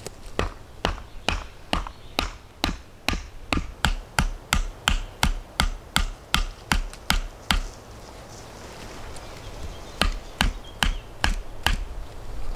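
Repeated hammer blows driving a tent peg into the ground to stake down a poncho shelter. The knocks come about two a second for some seven seconds, stop, then a few more come near the end.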